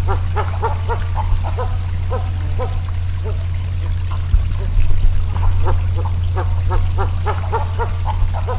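Many short, low calls of an animal repeated several times a second, over a steady low rumble.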